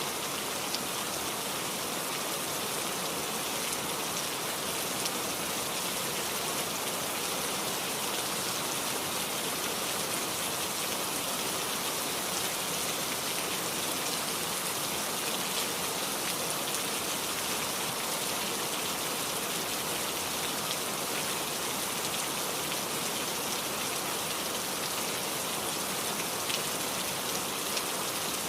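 Steady heavy rain falling, an even hiss with a few distinct drops ticking out of it.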